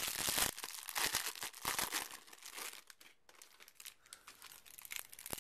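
Clear plastic wrapper of a trading-card pack crinkling and tearing as it is handled and opened by hand. It is loudest in the first couple of seconds, eases off past the middle and picks up again near the end.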